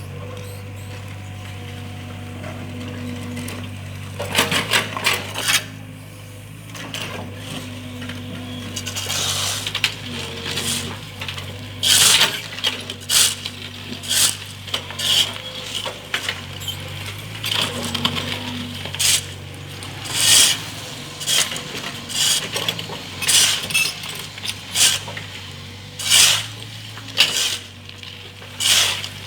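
Mini excavator at work: its engine runs at a steady low hum while the bucket gives repeated sharp metallic clinks and scrapes, about one every second or two, from about a third of the way in.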